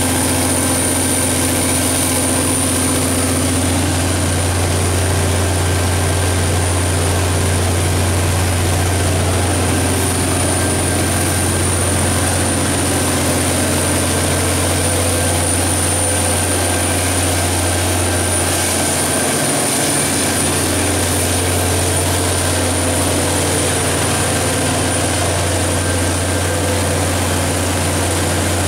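Detroit Diesel / MTU 12V4000 V12 diesel engine of a 1360 kW standby generator set running steadily. A deep, even drone carries a thin, steady high-pitched whine above it.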